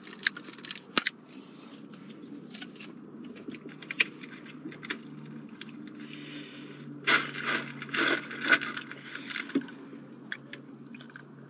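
Straw wrapper rustling with small clicks, then a plastic drinking straw pushed down through the lid of a fast-food drink cup, a cluster of scraping strokes about seven to nine seconds in.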